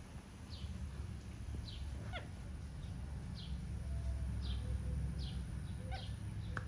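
Short, high chirps that fall in pitch, repeated roughly once a second, over a steady low hum.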